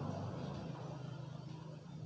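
Steady low engine drone of a passing motor, fading away.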